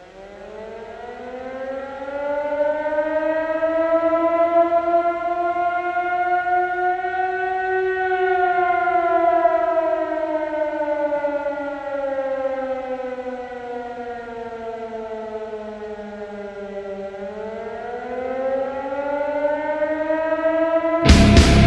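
A siren wailing: its pitch climbs slowly for about eight seconds, sinks for about nine, then starts to climb again. Loud rock music cuts in just before the end.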